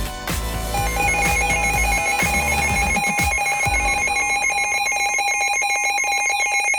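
Weather radio receiver's alert alarm: a shrill electronic beep trilling rapidly, taking over about a second in from a steady tone that cuts off. It signals an incoming weather warning.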